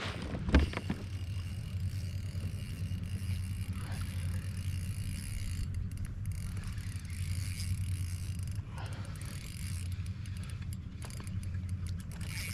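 Spinning reel being cranked to bring in a hooked bass, with fine mechanical ticking over a steady low rumble and a single knock about half a second in.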